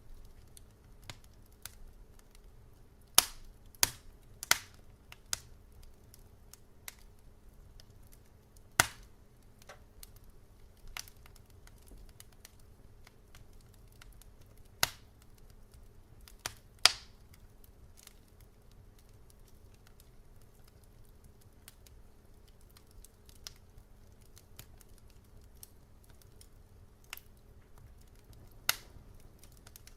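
Wood fire in a fireplace crackling: scattered sharp pops and snaps at irregular moments, a cluster of loud ones about three to five seconds in and others around nine, fifteen and seventeen seconds, over a faint steady low hum.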